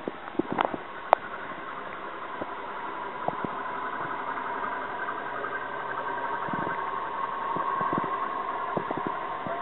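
An engine running steadily, slowly growing louder toward the end, with a few sharp clicks near the start.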